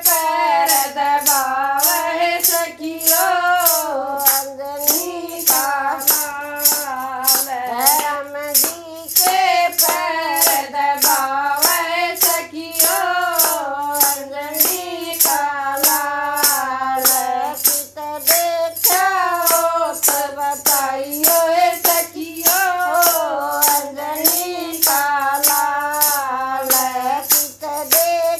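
Two women singing a Haryanvi folk bhajan together, a hand-held plastic jingle clapper shaken on a steady beat about twice a second.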